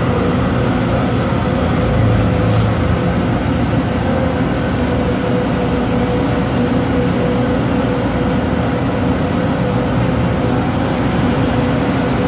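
Steady drone of a fishing vessel's engine at sea, a constant hum that holds one pitch, over wind and water noise.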